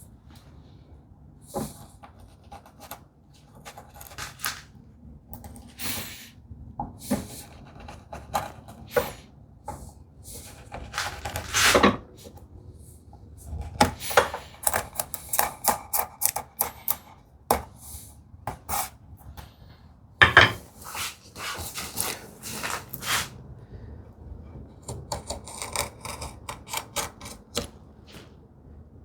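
Chisel pushed into wood by hand pressure at the knife line of a dado: irregular short, crisp cutting and scraping strokes of steel on wood, a few much louder ones about twelve and twenty seconds in.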